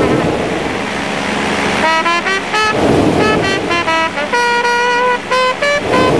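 Solo trumpet playing a jazz melody: after a breathy wash of noise, a quick run of short notes starts about two seconds in, then a longer held note.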